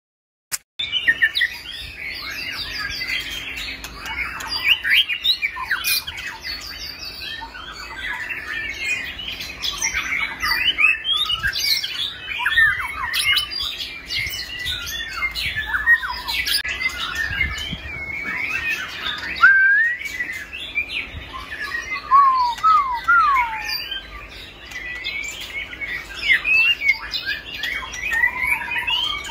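White-rumped shama singing a continuous, varied song of whistled notes, sliding phrases and rapid chatter, starting abruptly about a second in.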